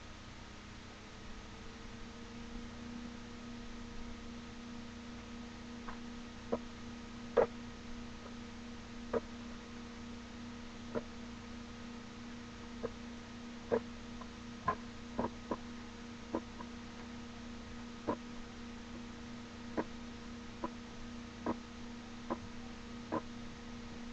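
Steady electrical hum with soft, sharp clicks at irregular intervals, about one a second, starting about six seconds in, from a battery-driven beckoning lucky cat figurine's waving mechanism.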